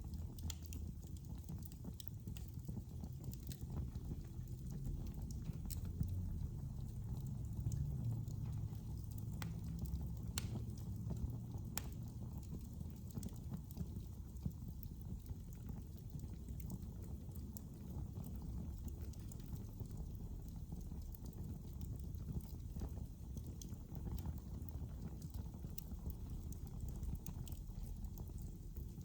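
Wood fire crackling in a fireplace: a steady low rumble of burning with scattered, irregular sharp pops and crackles.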